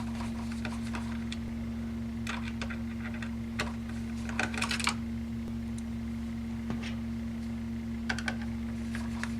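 Small clicks and short scrapes of a screwdriver and small metal and plastic laptop parts being handled while the heatsink is taken off, a few scattered and a quick cluster about halfway. Under them runs a steady low electrical hum.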